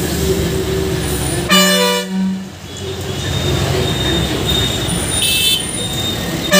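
Horn of an Ashok Leyland BS6 diesel city bus sounding one steady blast of about a second, over the running engine and road noise heard from inside the cabin near the driver. A short hiss comes near the end, and a second horn blast begins right at the close.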